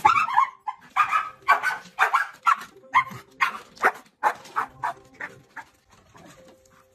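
Dog barking and yipping in a rapid string of short, high calls, about two or three a second, tapering off near the end.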